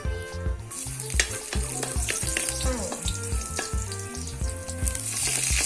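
Food sizzling in hot oil in a pan, starting suddenly about a second in and getting louder near the end, with a utensil clicking and scraping as it is stirred. A steady beat of background music runs underneath.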